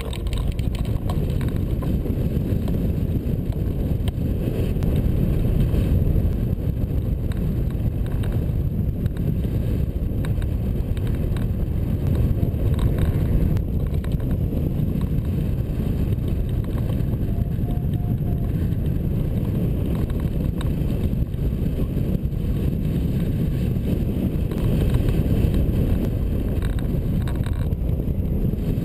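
Steady rush of wind buffeting the microphone of a camera mounted on a hang glider in flight.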